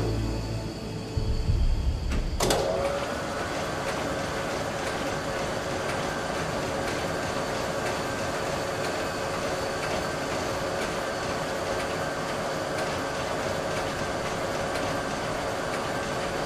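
A low rumble that ends with a sharp click about two and a half seconds in, followed by a steady mechanical whirr with a held hum: the motorised shell-handling conveyor of an automated ammunition magazine running.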